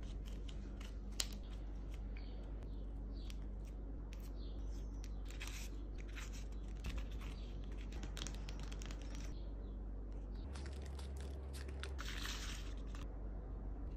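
Scissors snipping glitter paper, and paper crinkling and rustling as paper nail cones are handled, with scattered small clicks and a sharp click about a second in. A steady low hum runs underneath.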